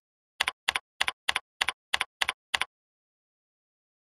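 Computer keyboard keystrokes: eight quick, evenly paced key taps over about two seconds, starting about half a second in. Each tap is a short double click.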